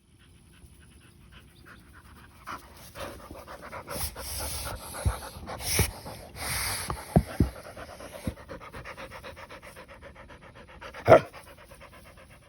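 A dog panting fast and hard in an even rhythm, excited at his kiddie pool. Several noisy bursts and low thumps come in the middle, and one loud sharp sound about eleven seconds in.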